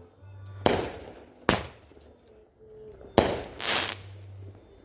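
Fireworks going off: four sharp bangs spread over about three seconds, the last a longer, drawn-out burst.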